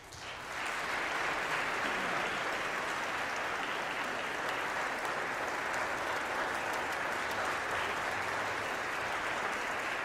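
Audience applauding, breaking out suddenly and reaching full strength within about half a second, then holding steady.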